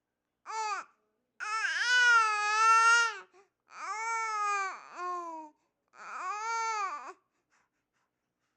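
Six-month-old baby babbling: four drawn-out vocal sounds, the longest about two seconds, each dropping in pitch at its end.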